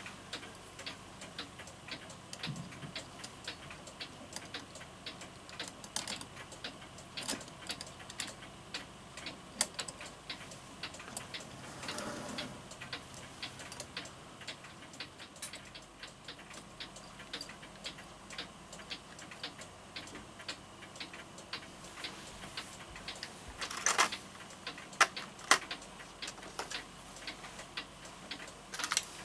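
Florenz Kroeber mantel clock movement ticking steadily, with a few louder clicks and knocks about two-thirds of the way through.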